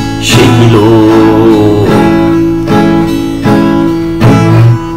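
Acoustic guitar strummed slowly, a chord struck every second or so. About half a second in, a man's voice holds a wavering sung note for over a second.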